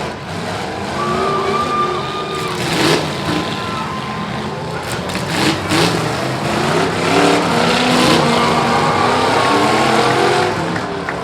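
Several demolition derby cars' engines revving hard, with a few crashes of metal as cars ram each other, about three seconds in and again a couple of seconds later.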